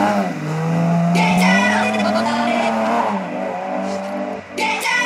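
BMW E30 325i rally car's straight-six engine revving hard, its pitch climbing and dropping with throttle and gear changes, while the tyres slide on loose gravel.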